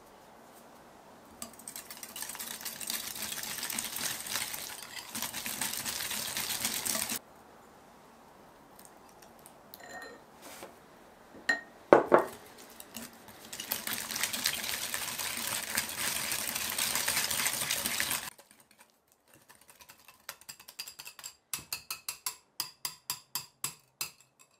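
A kitchen utensil beating rapidly in a mixing bowl in two long spells of several seconds each, with one sharp clink on the bowl between them. Near the end comes a run of quick, evenly spaced taps, about three a second.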